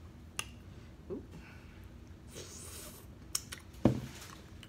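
Quiet room with a few faint clicks and taps, a soft breathy hiss about halfway through, and one sharper knock near the end.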